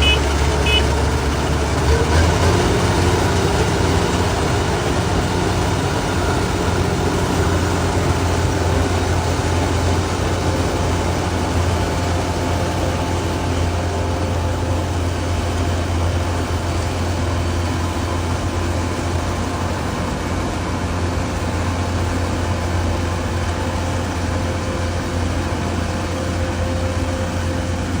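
Kubota DC105X combine harvester's diesel engine and threshing machinery running steadily under a deep, even hum, with a slight change in pitch about two seconds in.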